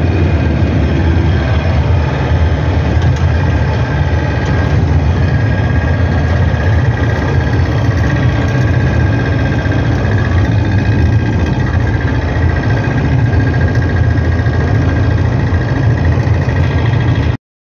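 Steady engine and road noise of a vehicle driving at speed, heard from inside the cab. It cuts off abruptly near the end.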